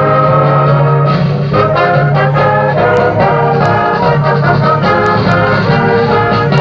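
Community concert band playing live, brass to the fore: trumpets, trombones and horns holding chords that change every second or so.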